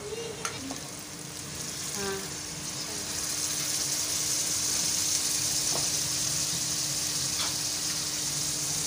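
Beef liver pieces in oily masala sizzling as they fry in an aluminium karahi. The sizzle swells and grows louder about three seconds in, with a few light clicks of the spatula against the pan.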